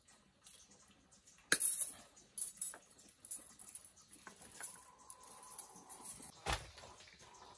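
Irregular light clicks and knocks of small hard objects being handled, the sharpest about a second and a half in, with a faint steady high tone in the background from about the middle on.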